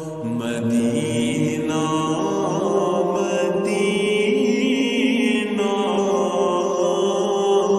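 A naat being sung: a voice holding long melodic notes with wavering ornaments, over a steady low humming drone.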